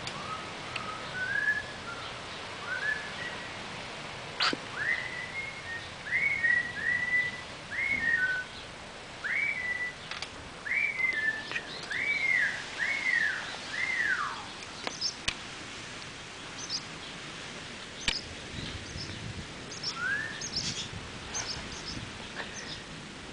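Whistling: a run of about a dozen clear notes, each rising and then falling, ending in a longer downward glide, followed a few seconds later by one more note and several short, high chirps. A few faint clicks sound over a steady outdoor hiss.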